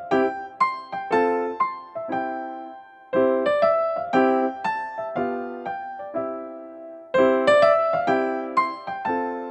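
Background music: a light tune of short struck notes that each die away, the phrase starting over about every four seconds.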